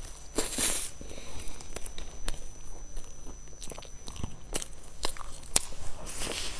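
Close-up mouth sounds of someone biting into and chewing a sesame-topped, cream-filled bread roll. Sharp wet clicks and soft crunches run throughout, with a louder bite about half a second in and another near the end.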